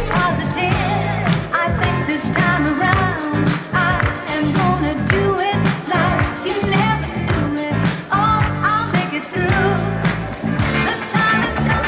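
A pop song with a singer over a steady bass beat.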